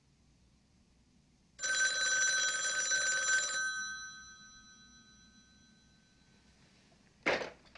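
Telephone bell ringing once for about two seconds, its tones then dying away over the next few seconds. A short noise near the end.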